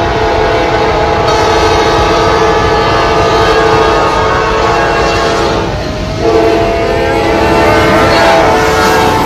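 Diesel locomotive air horn blowing a long chord of several tones, cutting out briefly about six seconds in and then sounding again, over a steady rumble of train and traffic noise.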